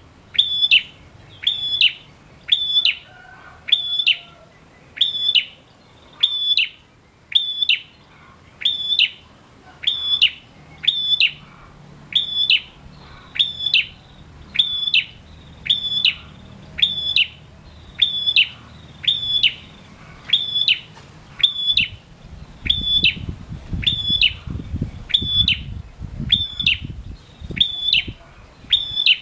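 Male prenjak calling a short, sharp, high note over and over in a steady rhythm, a little more than one call a second. Late on, a low rumble runs for several seconds under the calls.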